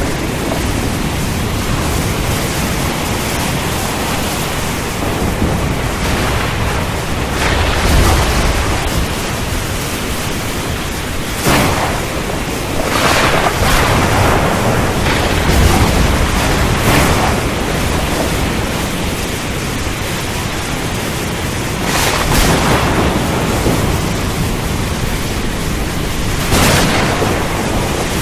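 Thunderstorm: a steady, loud rushing noise throughout, broken by several sudden thunder cracks with low rumbles, the strongest rumbles about a third and halfway through.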